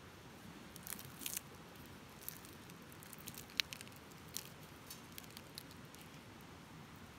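Charred, crisp outer layers being peeled by hand off food roasted in a campfire: a scatter of short crackles and tearing clicks, the loudest a little past three and a half seconds in.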